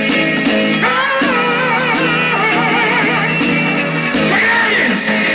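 Music with a singing voice that wavers up and down, the voice coming in about a second in over steady held notes.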